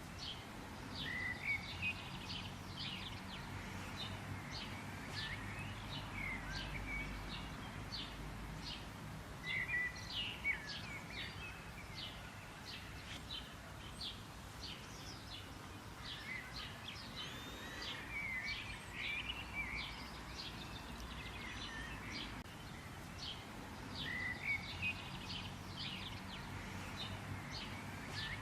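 Several songbirds chirping and trilling in quick high notes, in clusters every few seconds, over a steady low background hum.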